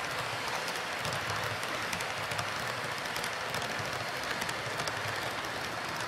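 Model train freight cars rolling past close by on a curved track: a steady rolling hiss from the wheels with a quick run of small clicks as they cross the rail joints.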